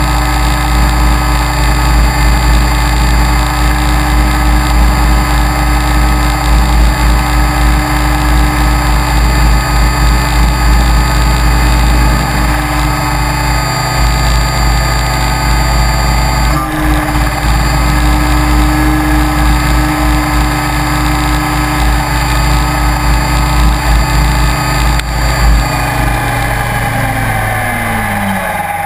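Align T-Rex 550E electric RC helicopter heard from its onboard camera: a steady whine from the brushless motor and gears over the low beat of the rotor. A brief knock comes near the end, and then the whine falls in pitch as the rotor winds down with the helicopter on the ground.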